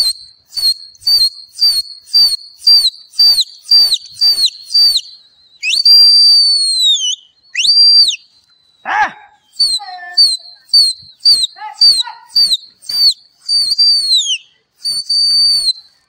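A pigeon keeper whistling shrilly, in rapid short blasts about two a second, then a couple of long held notes that drop in pitch at the end, then more short blasts. It is whistling to drive a released flock of pigeons upward and keep it flying.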